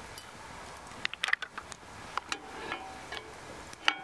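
A scatter of small clicks and taps from objects being handled: a quick cluster about a second in, a few more, then one sharper clink near the end that rings briefly.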